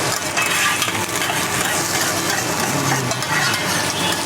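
Fried rice being stir-fried on a hot teppanyaki iron griddle: steady sizzling with quick scraping and clicking of the spatulas on the plate.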